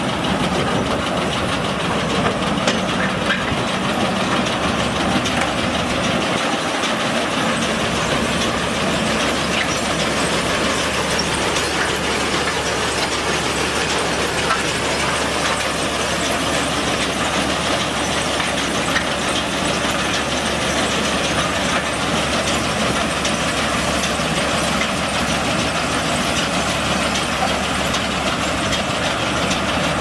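New Holland Rollbelt 560 round baler running empty off a tractor's PTO, a steady mechanical clatter of its rolls, belts and chains over the tractor's engine.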